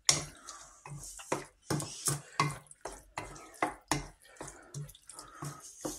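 Wooden spatula stirring a wet, creamy filling of chicken and mushrooms in béchamel around an enamelled frying pan, a regular run of squelching, scraping strokes about two to three a second.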